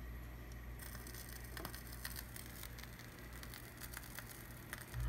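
Faint crackle and scattered clicks of vinyl surface noise as the ION Profile Pro turntable's stylus rides the lead-in groove of a spinning LP, played through the stereo receiver. The crackle starts about a second in, over a steady low hum.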